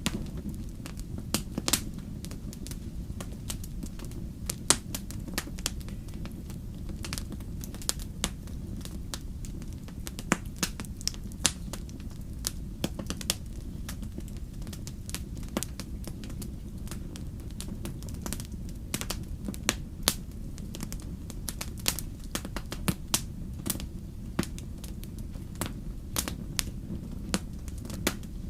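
Wood campfire crackling: irregular sharp pops from the burning logs, a few a second, over a steady low murmur of the flames.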